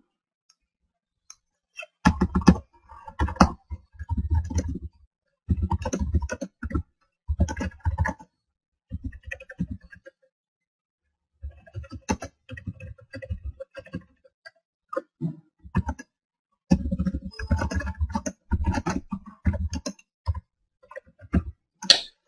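Computer keyboard being typed on in short bursts of rapid keystrokes, with pauses of a second or two between bursts.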